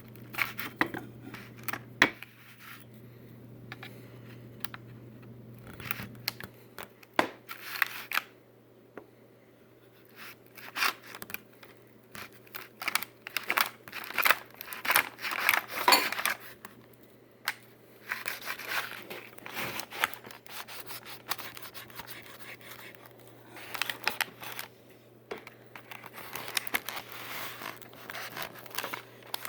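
Hard plastic anti-theft blister packaging being cut and pried open: irregular sharp snips, crackles and scrapes of the stiff plastic, coming in bursts with short pauses.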